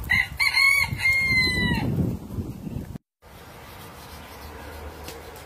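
A rooster crowing close by: a few short rising notes and then a long held final note that ends about two seconds in.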